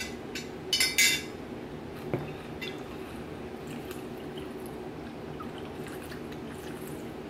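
Wooden chopsticks clinking against ceramic noodle bowls, a quick cluster of clinks in the first second and a few lighter clicks after, with a single knock about two seconds in as a glass jar is set down on the table. A steady low hum of the room runs under it.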